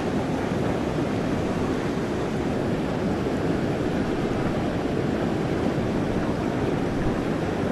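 Water pouring over a river weir, a steady rush without breaks.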